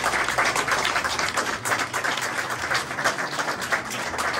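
A small group of people applauding: many overlapping hand claps in a steady run.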